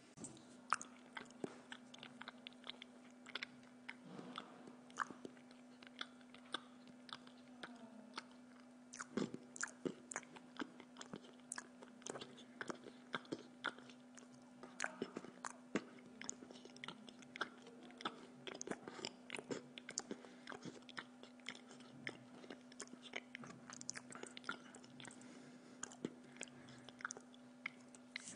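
A person chewing and biting into a slice of pizza close to the microphone: many small, irregular mouth clicks and soft crunches of crust. A steady low hum runs underneath.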